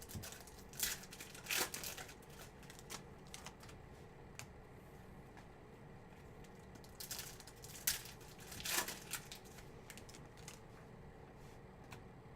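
Football trading-card pack wrappers crinkling and tearing as packs are opened, in two spells of short rustles: about a second in, and again around seven to nine seconds in.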